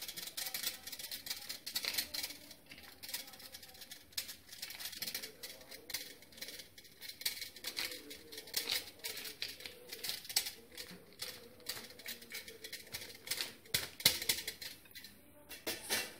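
A cube of cheese being grated on a small hand grater, in quick, irregular scraping strokes.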